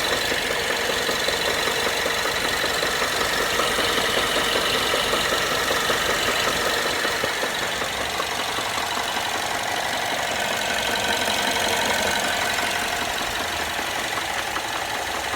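BMW N13 1.6-litre turbocharged four-cylinder engine idling warm, with a steady fast tapping knock running through the idle.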